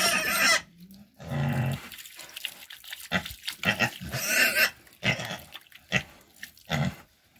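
Restrained Vietnamese pot-bellied boar giving short grunts and squeals in separate bursts, with water splashing as it is poured over and scrubbed on its body.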